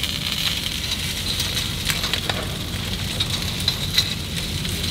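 Raw chicken wings sizzling steadily on hot grill grates over a gas grill's lit burners, with a few light clicks as wood pellets are dropped into a grate channel.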